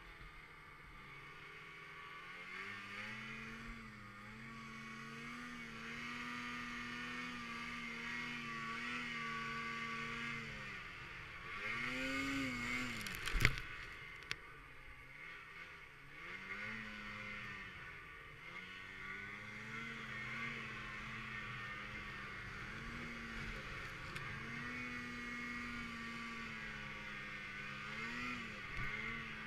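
Snowmobile engine running under changing throttle, its pitch dipping and rising again several times. A single sharp knock about halfway through.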